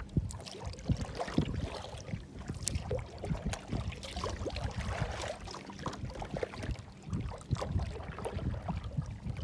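Small waves slapping and gurgling irregularly against the plastic hull of a sit-on-top kayak.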